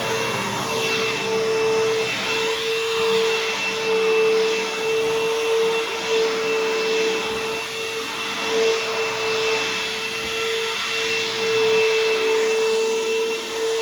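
Bissell CleanView Helix bagless upright vacuum running: a steady motor whine with a fainter high tone over the rush of air, its level swelling and dipping slightly.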